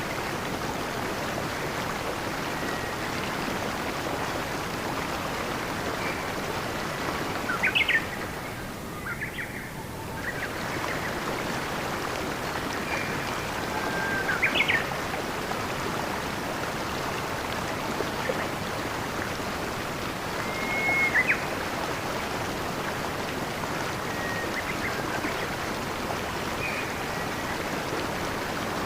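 Steady rush of flowing water, with short bird chirps every few seconds. The loudest chirps come about a quarter of the way in, midway and about two-thirds through, and the water briefly thins just after the first of them.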